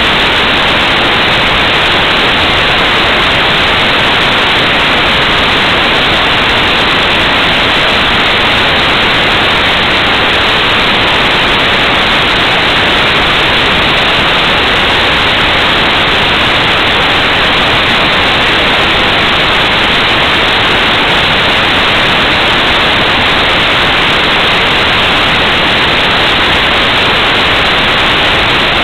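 Loud, steady hiss like static from an 808 keychain camera's microphone on a Hubsan Spyhawk RC plane in flight, with no distinct motor tone or other sound standing out.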